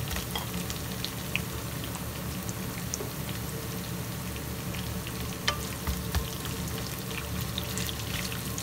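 Sliced onion, ginger and garlic sizzling steadily in hot oil in a non-stick wok, with scattered little pops of spattering oil. A couple of light knocks come about five and six seconds in.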